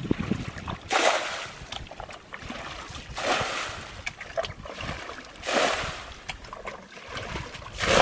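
Muddy pond water being bailed out with a plastic bucket: a splashing rush of scooped and thrown water about every two seconds, four times.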